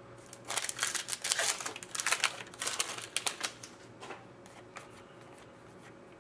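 Hockey trading cards being flicked and slid against one another as a stack is sorted by hand: a quick run of sharp clicks and rasps that thins out a little past halfway.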